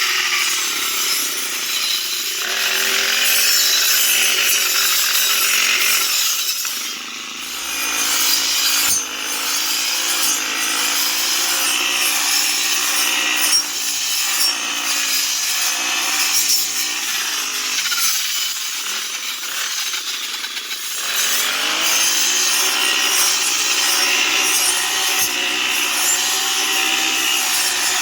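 Grass-cutting machine running and cutting green grass: a continuous rasping hiss over an engine note that sags and picks up again a few times under load.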